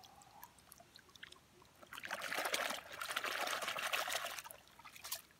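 A hand swishing and splashing vigorously in shallow muddy water, rinsing the mud off a small die-cast toy car. A few faint drips and clicks come first, then the splashing starts about two seconds in and lasts about two and a half seconds.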